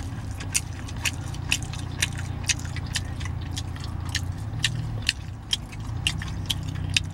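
A person chewing takeout food close to the microphone, with sharp irregular clicks about twice a second, over a steady low hum.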